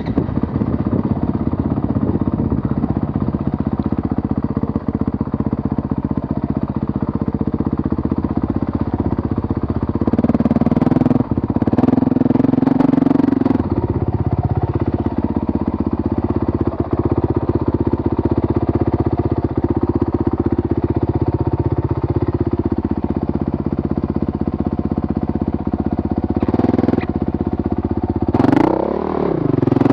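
Honda dirt bike engine running as the bike is ridden up a trail, the revs rising and falling with the throttle, with a quick rev up and back down near the end.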